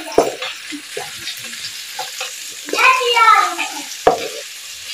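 Spatula stirring and scraping sliced onions, ginger and garlic frying in oil in a black wok, over a steady sizzle; the onions have just turned soft. The spatula knocks against the pan, sharply about four seconds in, and a brief wavering pitched sound comes just before that.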